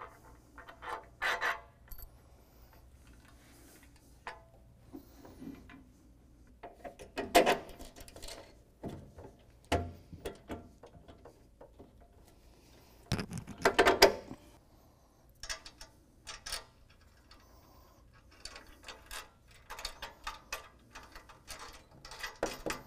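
Intermittent clinks and clicks of steel hardware handled by hand: a bolt, washers and a nut being fitted through a Heim joint on a Jeep tire carrier's tailgate bracket. There are two louder clattering knocks, about seven and fourteen seconds in, and a run of quick small clicks near the end.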